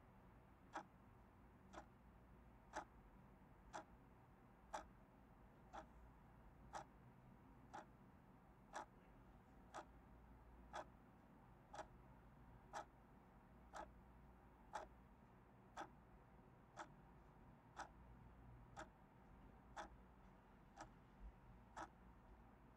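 A clock ticking faintly, one tick a second.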